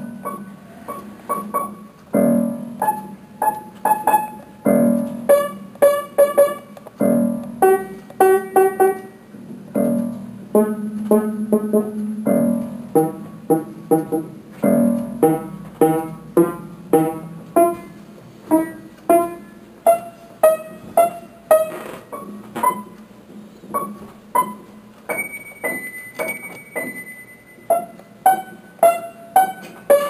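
Piano music: a melody of separate plucked-sounding notes, several a second, over a steady low note.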